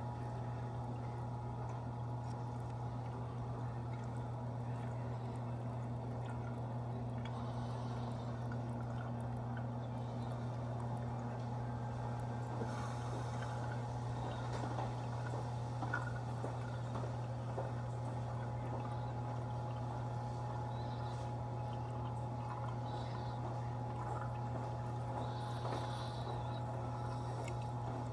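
Reef aquarium water trickling and splashing as it circulates, over a steady low hum.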